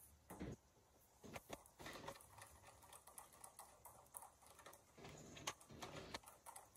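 Faint, irregular ticks and light scraping of a plastic whisk against a stainless steel bowl as cake batter is whisked.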